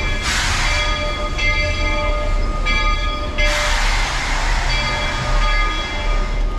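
Walt Disney World Railroad steam locomotive standing at the station. Steam hisses loudly in two bursts, one just after the start and one about three and a half seconds in, and between them come steady tones that stop and start.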